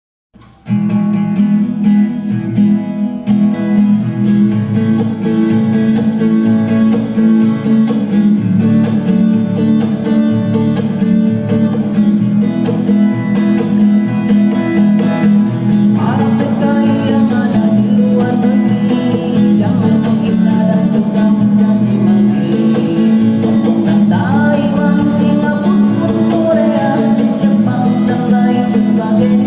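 Guitar playing a song, with a man's singing voice, without effects, coming in about halfway through.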